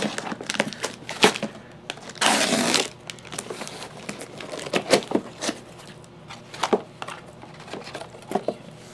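Packing tape ripped from a cardboard box in one loud tear lasting under a second, a little over two seconds in, amid handling clicks. The cardboard flaps and crumpled packing paper then rustle and crinkle with scattered sharp crackles as the box is opened.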